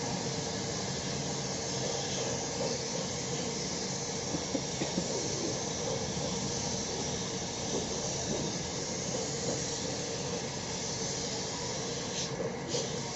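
Steady hissing noise of workshop machinery, running evenly with no break.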